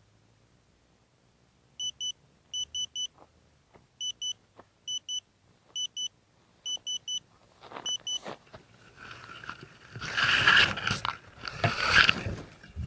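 A string of short high beeps, mostly in pairs. Then loud rustling and knocking as a small camera lying in long grass is picked up and handled, loudest near the end.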